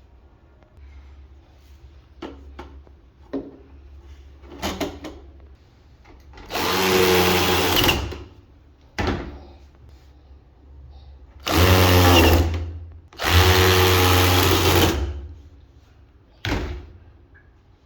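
Cordless power drill or driver run in three short trigger bursts of motor whine, driving screws, with clicks and knocks of parts being handled between the bursts.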